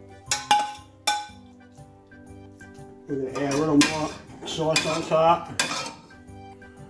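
Metal tongs and a sauté pan clinking against a ceramic plate, three sharp knocks in the first second, then a metal ladle scraping and clanking inside a stainless steel pot of marinara sauce.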